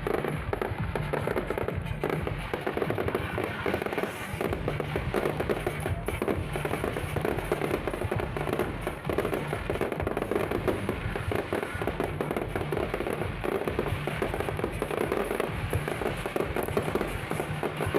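Fireworks display: a dense, continuous crackling and popping of bursting shells, with music playing underneath.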